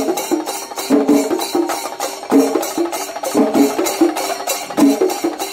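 Shinkari melam ensemble: chenda drums and ilathalam hand cymbals playing a fast, even beat, with a short stepped tune that repeats over the drumming.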